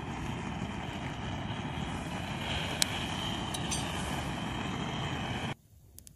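Gas torch jetting steadily into firewood in a small steel fire pit, with one sharp crackle about three seconds in. Near the end the torch sound cuts off suddenly, leaving the faint crackle of the wood fire.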